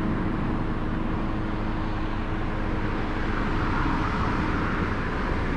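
Steady road traffic noise, a continuous rush of vehicles passing.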